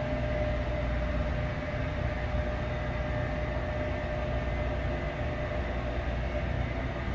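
Steady room hum: a low rumble and even air hiss of building ventilation, with a faint steady tone through it.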